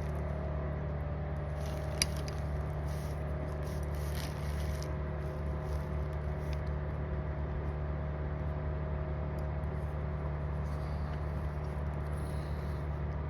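A steady low mechanical hum with a few fixed tones, over faint handling sounds of parts being moved and one sharp click about two seconds in.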